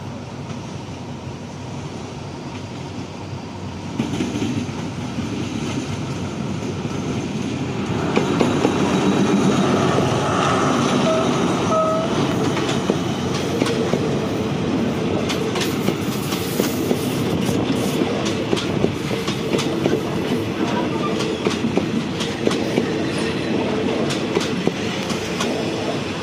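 Passenger train hauled by an Alsthom diesel-electric locomotive approaching and passing close by. The engine grows louder at about 4 s and again at about 8 s. From the middle on, the coaches' wheels clack rhythmically over the rail joints as they roll past.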